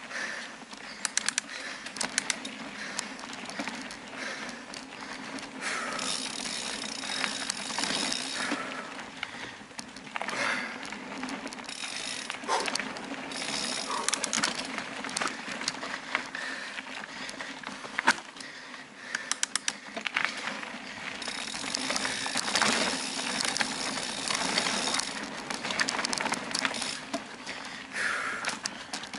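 Bicycle ridden along a dirt forest trail: steady tyre noise with many sharp rattles and knocks over bumps, and stretches of rapid ticking from the freewheel while coasting.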